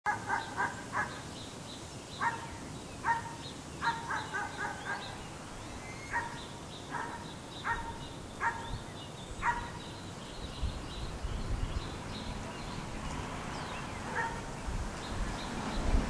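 A distant animal gives short pitched calls, singly and in quick runs of three or four, over faint high chirping from small birds. A low rumble builds in the second half.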